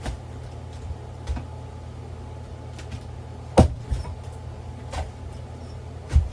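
A few scattered knocks and clunks of a hub-motor wheel and tools being handled on a workbench, the loudest about three and a half seconds in and another just before the end, over a steady low hum.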